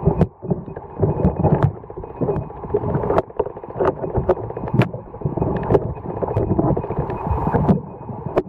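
Muffled underwater rumble and sloshing of water moving against a waterproof compact camera's built-in microphone, with a few sharp clicks scattered through it.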